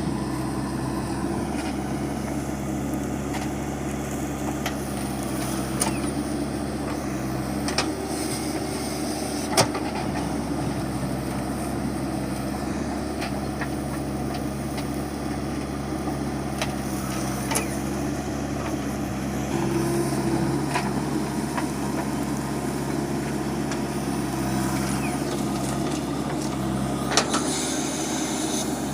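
JCB 3DX backhoe loader's diesel engine running steadily, with a few sharp knocks scattered through it.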